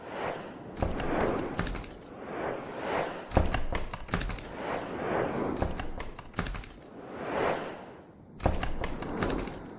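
Swelling whooshes and sharp, heavy hits with deep thuds, repeating every second or two: transition sound effects for animated graphics.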